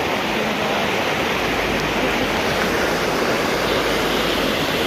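Shallow river water rushing and splashing down the tiered travertine cascades of a waterfall, a steady, even rush of water.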